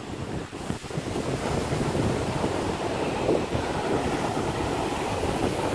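Small ocean waves breaking and their foam washing up over a sandy beach, a steady hiss of surf, with wind buffeting the microphone.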